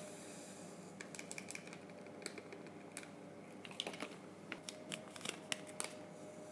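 Faint, irregular sharp clicks and crinkles of paper-foil dry yeast sachets being handled and their contents tipped into a glass Erlenmeyer flask of wort.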